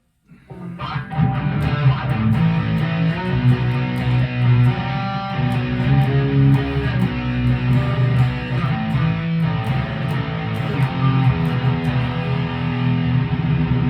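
Chapman ML3 Pro Modern electric guitar being played, starting about half a second in and then running on continuously.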